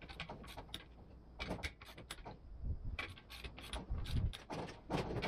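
Torque wrench ratcheting on the beadlock ring bolts of an off-road wheel as they are tightened to 16 foot-pounds in a crisscross pattern. It makes a run of sharp, irregular clicks in bunches, thickest in the second half.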